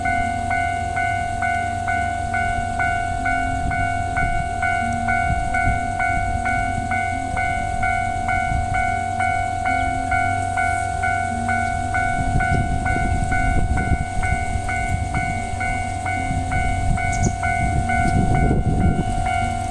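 Japanese railway level crossing's older-type standard electronic warning bell ringing a steady, rapid ding at a little over two strokes a second. A passing train adds a low rumble, strongest in the second half.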